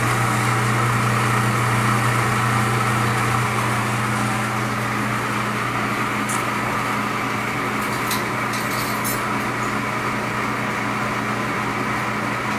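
Food processor motor running steadily, blending beet hummus, with a few faint clicks about six to nine seconds in.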